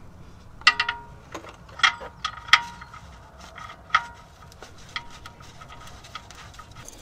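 Light metal-on-metal clicks and clinks, some with a short ring, as the oil drain plug with its new copper sealing ring is fitted by hand into the oil pan of the Mercedes M273 V8. They are irregular: a quick cluster of three early, a few more around two to two and a half seconds in, and the last around five seconds in.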